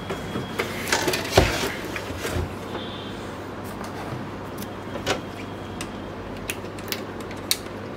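Hard plastic knocks and clicks from handling an opened Canon LBP2900B laser printer, a cluster in the first couple of seconds and a few light clicks after, over a steady low hum.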